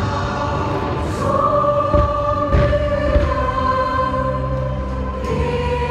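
Choral music with voices holding long sustained notes, with a few short bangs from the fireworks breaking in.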